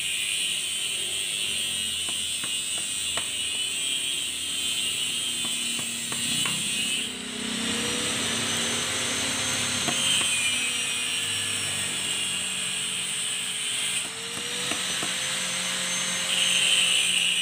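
Pliers clicking and snapping as copper winding wire is pulled and cut out of the stator of a used Sanyo water pump motor, over a steady high-pitched buzz; a faint wavering tone joins about seven seconds in.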